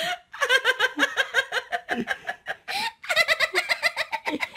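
High-pitched human giggling, a long run of rapid 'ha-ha-ha' pulses with a short break partway through.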